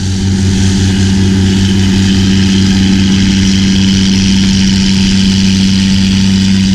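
Large diesel harvest machine running at a constant speed: a steady, unchanging low hum with a hiss above it.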